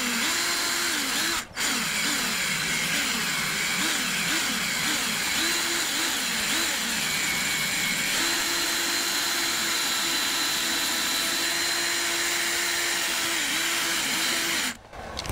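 Power drill spinning a rubber decal eraser wheel against car paint to strip old sticker residue. The motor whine wavers up and down in pitch, cuts out briefly about a second and a half in, holds steady in the second half, and stops just before the end.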